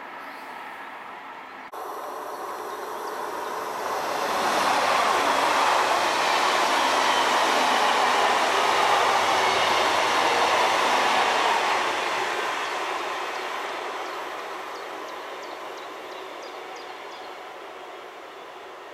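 Red regional electric multiple unit running past on the near track. Its running noise swells to a peak a few seconds in, holds, then fades steadily as the train draws away.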